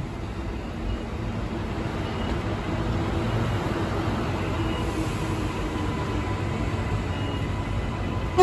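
Steady hum of a stationary Queensland Rail SMU 200 electric suburban train standing at a platform with its doors open.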